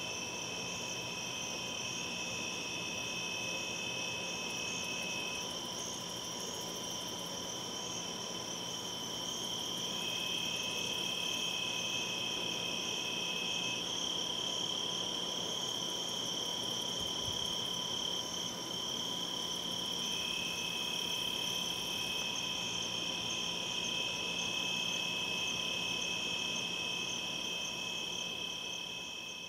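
Night chorus of crickets and other insects: several steady high-pitched calls at different pitches overlapping, one of them stopping and starting again, fading out near the end.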